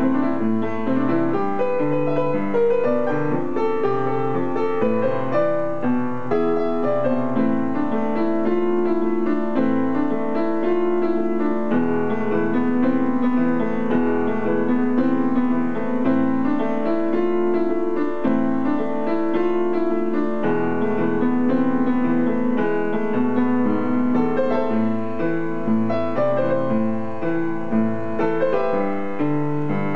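Solo piano playing a pop-rock song arrangement continuously, with chords and melody notes sustained over a low bass line.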